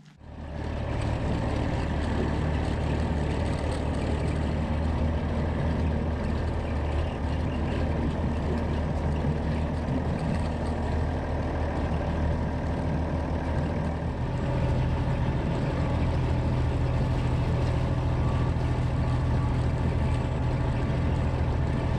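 County four-wheel-drive tractor's diesel engine running steadily under way, heard from the driver's seat; about two-thirds of the way through its note steps up slightly.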